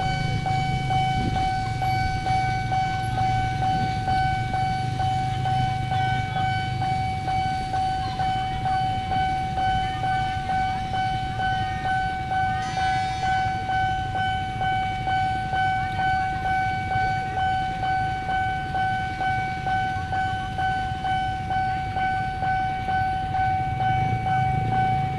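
Railroad level-crossing warning alarm sounding one steady electronic tone without a break, its loudness wavering evenly, over the low rumble of waiting traffic. A short horn sounds about thirteen seconds in.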